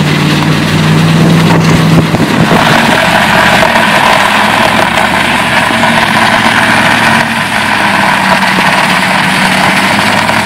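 A towing vehicle's engine running, joined about two and a half seconds in by a louder, steady rushing noise as the vehicle pulls the rope-tied wooden rig of jeans along the concrete.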